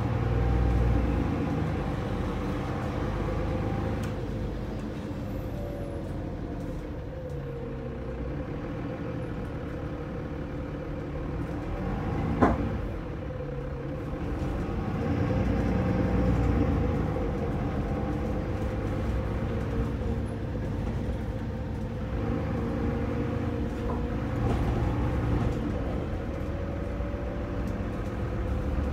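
Mercedes-Benz OM906LA six-cylinder turbodiesel of a Citaro O530 bus, heard from inside the cabin at the rear, running under way. Its note rises and falls as the bus drives. A single sharp knock comes about twelve seconds in.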